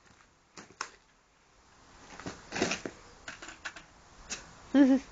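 A claw hammer striking and tapping an Xbox hard drive, with a handful of sharp knocks and light clicking and clattering of the broken metal and plastic pieces. A short vocal sound comes near the end.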